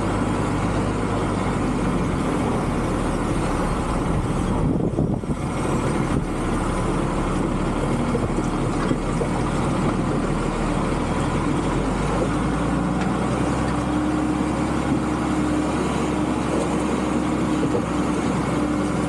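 John Deere 3650 tractor's six-cylinder diesel engine running steadily while towing a tipping trailer with its body raised to empty a load. About twelve seconds in the engine note changes and a steady higher tone comes in.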